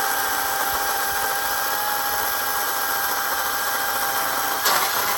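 Battery-powered chainsaw running under load as it cuts through a small tree branch: a steady high electric-motor whine over the rasp of the freshly sharpened chain in the wood, with a single sharp knock near the end.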